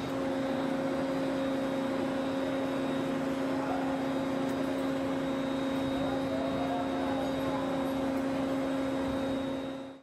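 Steady machine hum with a constant low tone over a noisy background, dropping out abruptly at the very end.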